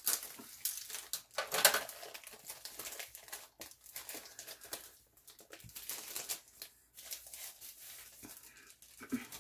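Clear plastic wrap crinkling and rustling as it is slit open and a rolled diamond-painting canvas is slid out of it: irregular crackles throughout, loudest about one and a half seconds in.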